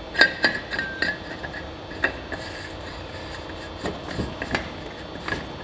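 End cap being screwed by hand onto the bottom of a Tsunami CORE desiccant air dryer housing: rubbing of the threads and hands on the housing, with irregular sharp clicks.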